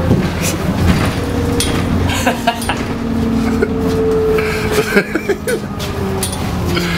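Heard from inside a city bus: the bus's engine running with a steady low hum and a held whine, with scattered knocks and rattles and brief bits of voices.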